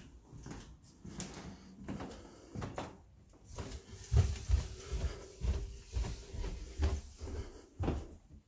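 Footsteps going down a flight of stairs, mixed with the knocks of a door being handled. A run of dull thumps fills the second half, over a faint steady hum.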